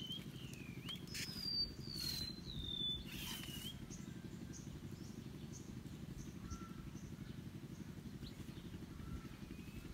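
Birds calling: a run of clear whistled notes, each sliding downward, over the first few seconds, then fainter short calls. Underneath is a steady low hum, and a few brief rustles come about a second, two seconds and three seconds in.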